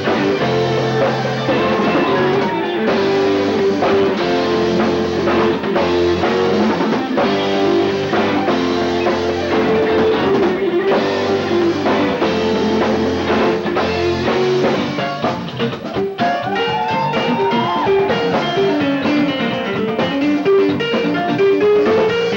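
A rock band playing live, with guitar over bass and a drum kit, recorded on a mini cassette.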